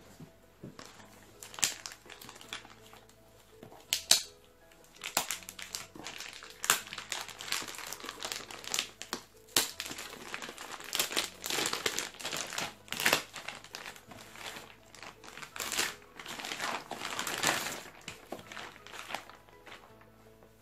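Clear plastic wrapping crinkling in irregular bursts as hands peel it off a boxed album and handle the box.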